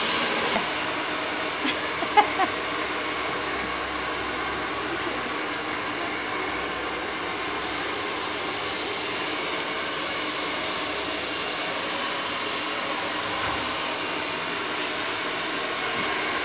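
Handheld hair dryer blowing steadily while long hair is blow-dried straight. A few brief clicks come about two seconds in.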